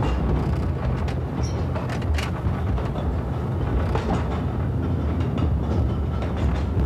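Underground mine man-riding train running along its rails, heard from inside the carriage: a steady low rumble with a few scattered clanks and rattles.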